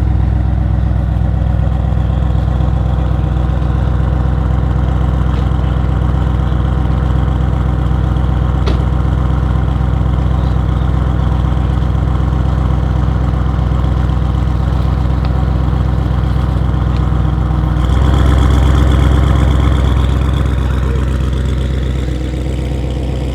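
Audi RS6 C8's twin-turbo 4.0 V8, fitted with catless downpipes and an OPF-delete exhaust, idling with a steady note. It grows louder for a few seconds near the end, then settles.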